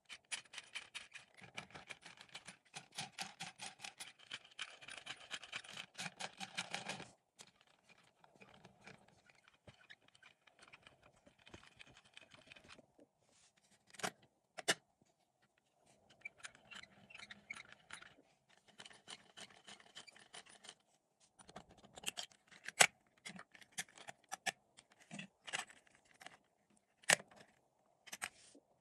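Plastic LEGO Technic parts of a small engine model clicking and rattling under the hands. There is a fast, dense run of clicking for about the first seven seconds, then quieter scraping and handling, broken by a few single sharp clicks.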